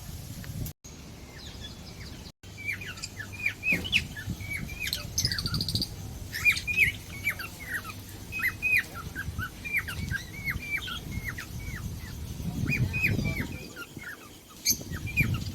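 Small birds chirping busily: many short, hooked chirps, a few each second, starting about two and a half seconds in, over a low background rumble.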